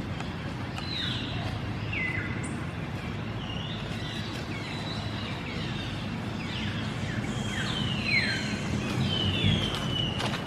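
High animal chirps that fall in pitch, repeated about once a second and crowding together near the end, over a steady low rumble.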